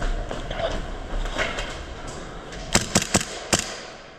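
Rustling movement, then four sharp airsoft shots about three seconds in: three in quick succession and a fourth a moment later.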